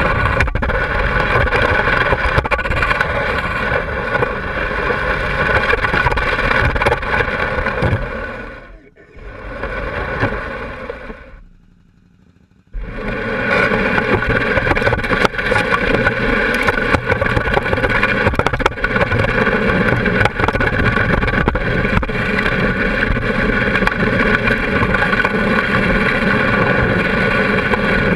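Can-Am Spyder three-wheeled roadster running steadily on the road, its engine and road noise heard close up from the front of the machine. About nine seconds in the sound dips, then fades away, and at about thirteen seconds it cuts back in suddenly and runs steady again.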